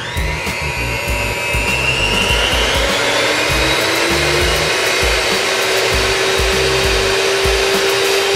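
Chrome electric hand mixer's motor whining as it speeds up over the first few seconds, then running at a steady pitch. Underneath is music with a heavy, regular low beat.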